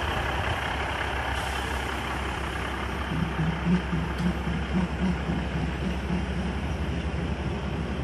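A passenger train rolls slowly alongside the station platform as it pulls in, a steady rumble of running gear and engine. About three seconds in, a low rhythmic pulsing of roughly two to three beats a second joins it.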